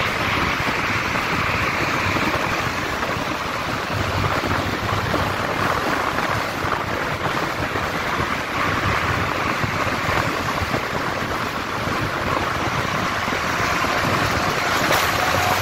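Steady rush of wind buffeting the microphone of a motorcycle riding at highway speed, with road and engine noise blended in beneath it.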